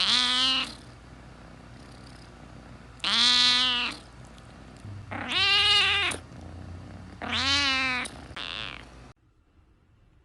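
A cat meowing loudly four times, each call under a second long, then a shorter, softer meow; the sound cuts off abruptly near the end.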